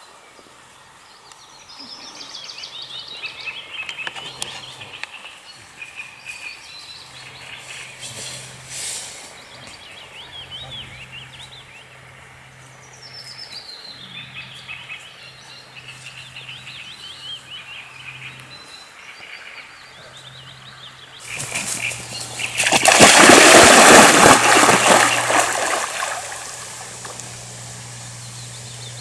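Small birds chirping and trilling around a pond. About 21 seconds in, a loud splashing lasts several seconds as a black Labrador plunges into the water, then fades as the dog swims off.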